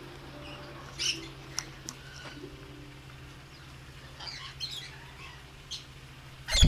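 Red lory giving short, high chirps and squawks as it clambers on the aviary's wire mesh, then a loud thump and rustle at the very end as it lands on an arm.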